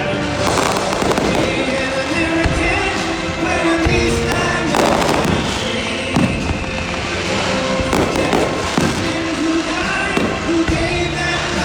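Aerial fireworks show bursting overhead, a shell going off every second or two with booms and crackle, over music.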